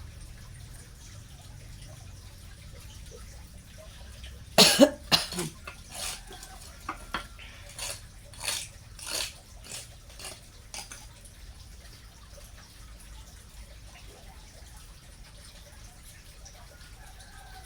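A person with a cold and cough coughing: one loud cough about four and a half seconds in, then a string of shorter, weaker coughs over the next six seconds.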